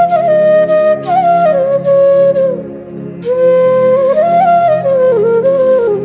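Bansuri (bamboo transverse flute) playing a slow Pahadi melody: held notes with slides and quick ornaments, in two descending phrases with a short breath between them about two and a half seconds in. A steady low drone sounds underneath throughout.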